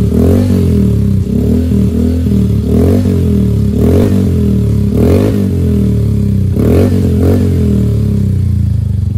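Motorcycle engine idling through its exhaust, blipped with short throttle revs about once a second and two quick revs close together near the end.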